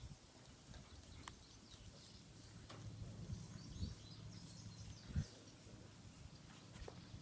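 Quiet outdoor ambience: faint bird chirps over a steady high hiss, with a few soft knocks, the loudest a little past five seconds in.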